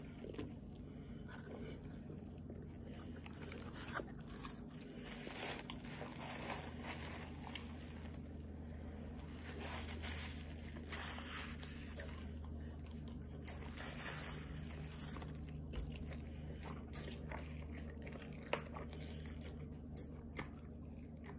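A person biting into and chewing a chicken sandwich: faint soft crunching and mouth sounds with scattered small clicks, over a low steady hum.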